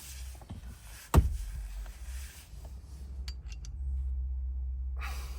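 Hand tools being handled while fitting onto the steering wheel retaining nut: a single sharp knock about a second in, then light rustling and a few small ticks, with a low rumble of handling noise near the end.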